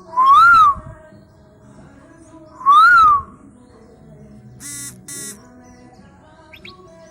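Asian koel calling twice, each a loud, clear note that rises and then falls in pitch, about two and a half seconds apart. Two short, quieter, buzzy notes follow about two seconds later.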